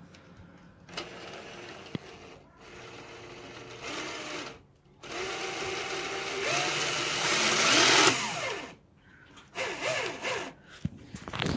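Cordless drill running in several short bursts, spinning a Lego V12 engine model through its drive shaft. The last and longest run is the loudest and rises in pitch.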